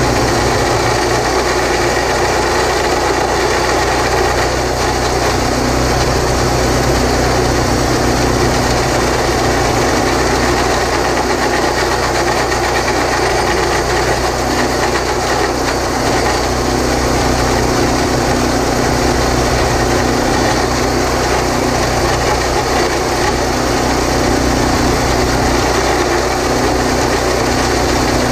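Horizontal boring machine running steadily under load: a small engine drives the drill rod while a 4 3/8-inch back reamer grinds through concrete, with water flushing the cut.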